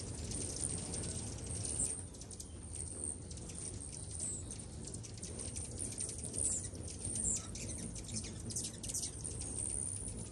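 A crowd of hummingbirds chirping at feeders: thin, high chirps come thick and fast, with a few short falling squeals, over a steady low rumble.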